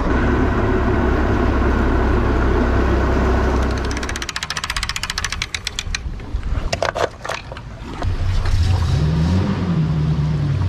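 Small boat's inboard engine running steadily. A quieter stretch with rapid clicks and a few sharp knocks follows, then the engine runs again with its pitch rising and falling as the throttle changes.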